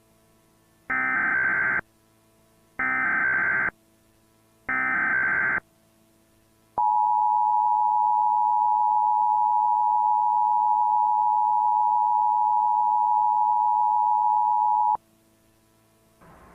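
Emergency Alert System tones: three short bursts of SAME header data, each just under a second, then the two-tone attention signal held for about eight seconds before it cuts off. The sequence opens a tornado warning alert.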